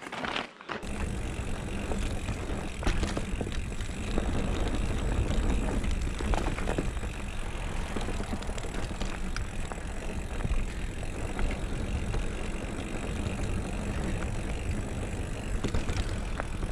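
Mountain bike riding fast down a dirt singletrack: steady tyre noise and drivetrain rattle, with wind rumbling on the microphone and scattered knocks as the bike hits bumps.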